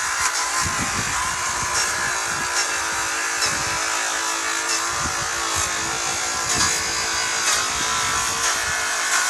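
Electric power tool running steadily with a continuous buzz.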